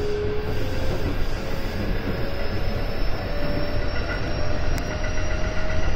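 Electric commuter train running, heard from inside the front car: a steady low rumble of wheels on track, with a thin motor whine slowly rising in pitch as the train gains speed.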